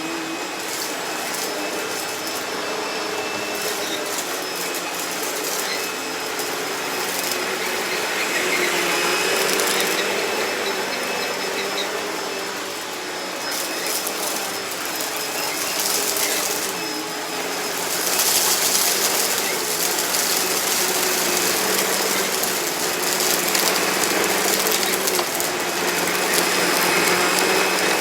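Hoover Deluxe Elite Rewind vacuum cleaner running steadily over shredded paper, its motor humming with a steady whine, with scattered clicks and rattles as bits of paper are sucked up. It gets louder about two-thirds of the way through.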